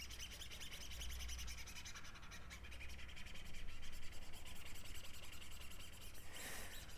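The plastic nozzle of a squeeze bottle rubbing and scraping across a silk screen's mesh as thick paste is spread with the side of the nozzle: a faint, continuous scratchy rub.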